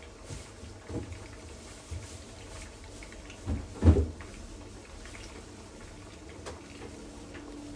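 Scattered knocks and clunks of things being handled in a kitchen, as at an open refrigerator, with the loudest about four seconds in, over a faint steady background.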